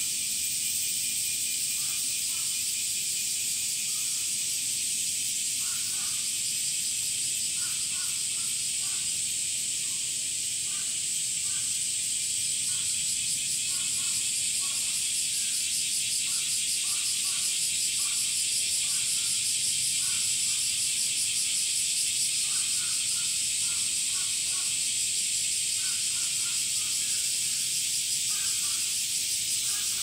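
Cicadas singing in the trees: male cicadas flexing their tymbals make a steady, high-pitched buzzing drone with a fast pulsing texture. It swells a little louder about midway through.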